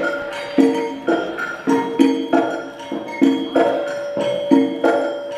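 Conga drum played by hand in a repeating rhythm of pitched open tones, a few strokes a second.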